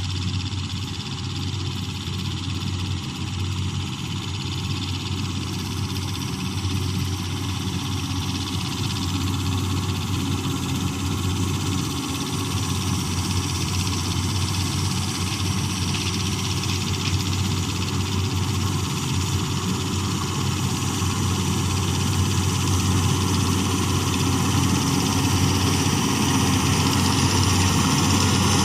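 Combine harvester engine running steadily, growing gradually louder.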